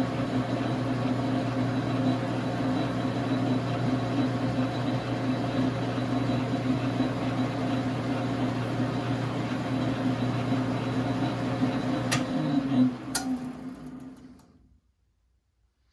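Dar Sin 12x37 gap-bed lathe running steadily on its 220 V single-phase motor with a steady hum. About twelve seconds in, two sharp clicks come and the lathe spins down to silence.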